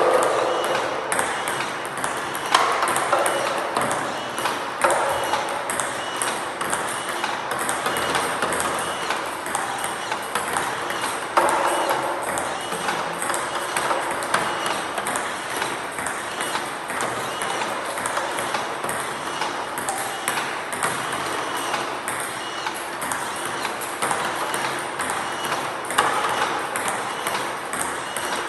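Table tennis balls fired by a ball-feeding robot and blocked back with a backhand: a rapid, continuous series of light plastic clicks as the ball strikes the paddle and the table.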